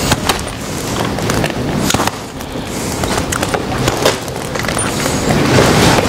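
Bolt cutters snipping the wires that bind a clothing bale: a few sharp metallic snaps a couple of seconds apart, over handling noise.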